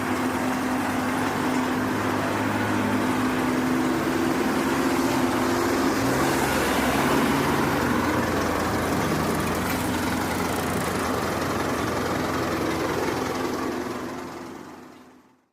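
Heavy vehicle engine running steadily, its tone shifting a little about halfway through, then fading out near the end.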